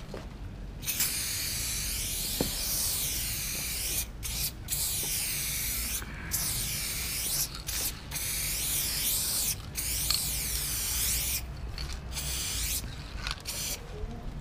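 Aerosol spray-paint can spraying in long bursts of several seconds, broken by brief pauses, as the letters of a graffiti throw-up are painted. The bursts become shorter near the end.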